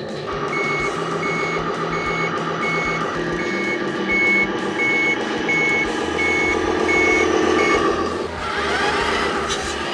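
Simulated reversing beeper of a 1/14-scale RC truck sounding about eleven even beeps, roughly one and a half a second, over a steady whine of the electric drive. The beeping stops near the end as the whine sweeps in pitch.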